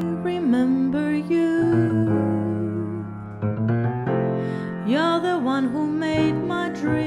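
A woman singing over grand piano accompaniment, her voice sliding between notes in phrases over held piano chords.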